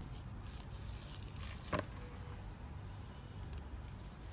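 Slime being pulled and stretched up out of a plastic tub, making faint wet clicks and small sticky pops, with one sharper pop a little under two seconds in.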